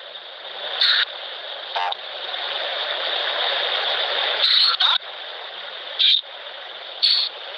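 Hissing static from the Necrophonic ghost-box app, with about five short, chopped sound fragments breaking through it.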